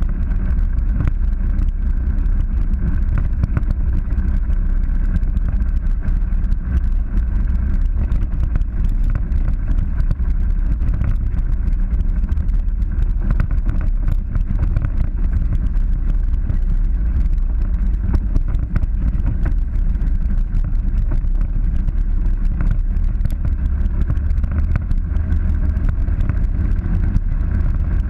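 Polaris 900 side-by-side driving at a steady pace on a dirt and rock trail: a steady, muffled low engine and drivetrain rumble, with many small clicks and knocks.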